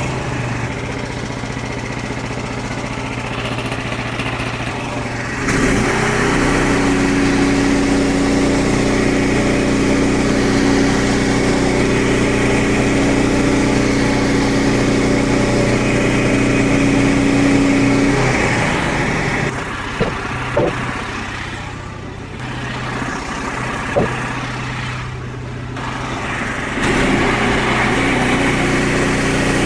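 Small gasoline engine of a Frontier OS23 portable bandsaw sawmill running steadily. About five seconds in it grows louder with a strong steady tone that lasts until about eighteen seconds. It then drops back, with a few sharp clicks, and rises again near the end.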